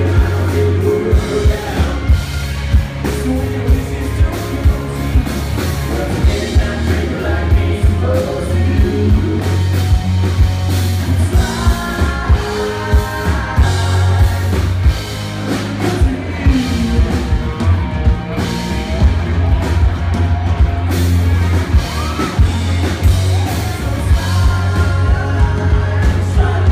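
Live rock band playing: a lead singer over acoustic and electric guitars and a drum kit keeping a steady beat.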